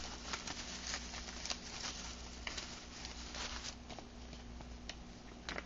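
Faint handling noise: scattered small clicks and light rustling as items are picked up and unpacked by hand.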